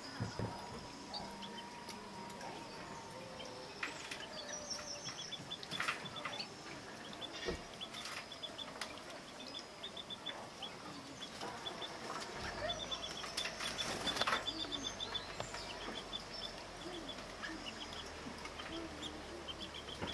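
Female Yorkshire canaries calling in quick runs of short chirps, with wing flutters and sharp clicks now and then as they squabble over a nest.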